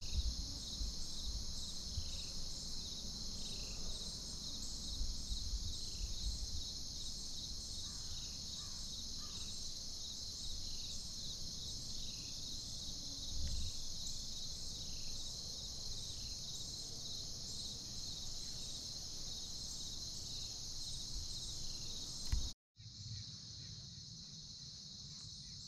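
Steady, dense, high-pitched chorus of crickets and other insects in woodland, with a short falling chirp repeating about every half second beneath it and a low rumble. The sound cuts out for a moment near the end, then the chorus carries on.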